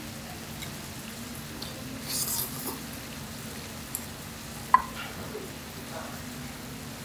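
Food sizzling on a tabletop griddle over a steady low hum, with small eating and tableware noises: a brief louder hiss about two seconds in and one sharp clink of tableware just before five seconds.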